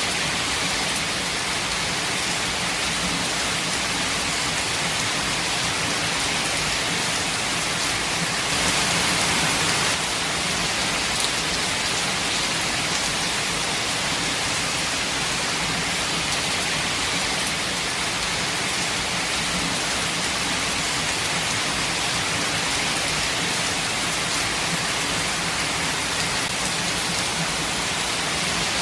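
Steady rain falling, an even hiss of drops, with a slight swell about nine seconds in.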